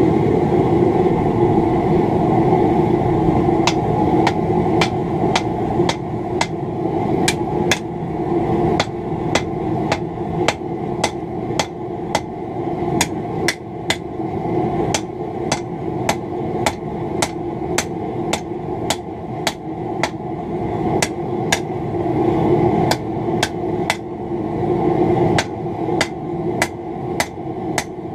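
Hand hammer striking red-hot scythe-blade steel on an anvil, forging it out: steady blows about two a second, starting about four seconds in, over a steady background noise.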